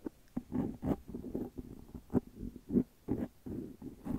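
Close-miked soft mouth sounds and faint whispering into a foam-covered microphone, in short irregular dull bursts about two a second.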